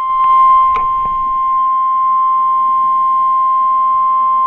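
NOAA Weather Radio warning alarm tone: one steady, loud, high-pitched beep, the alert that a new warning message is about to be read. A short click about a second in.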